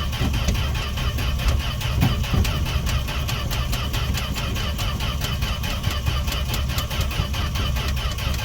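The engine of a 1968 Fargo D100 pickup being cranked over by its starter in an even, fast rhythm, without catching. It is a cold start after seven months of sitting, and the engine is not firing.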